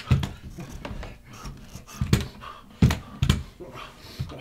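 A person struggling on a staircase, with a few dull thumps and knocks of body against the steps, the loudest about two to three seconds in.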